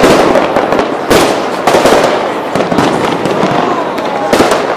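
Fireworks going off: an irregular series of sharp bangs over continuous crackling. The loudest bangs come right at the start and about a second in.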